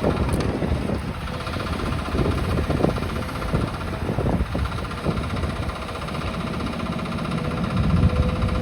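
Demolition excavator's diesel engine running steadily, with a few irregular knocks and crunches of brickwork being broken and falling.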